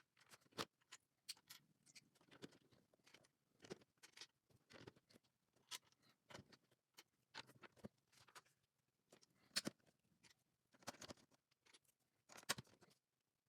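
Plastic LEGO bricks being handled and pressed together: irregular sharp clicks and small clatters, with light rustling between them.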